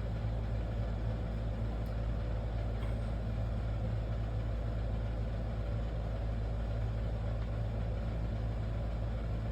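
Steady low machine hum at an even level, with a faint click about two seconds in.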